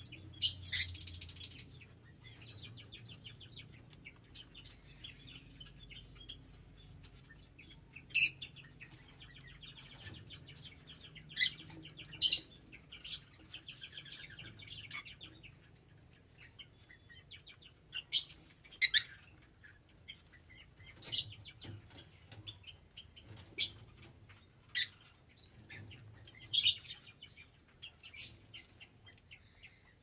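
Small pet parrots chirping: loud, sharp, high chirps every few seconds over softer, continuous chattering.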